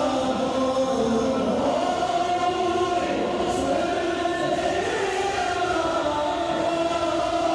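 Men's voices singing a devotional naat, with long drawn-out melodic lines that bend slowly up and down in pitch.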